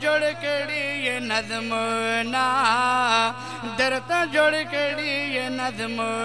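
A man chanting a Pashto nazm through a public-address microphone, one voice in long, wavering melodic phrases. A steady low hum runs underneath.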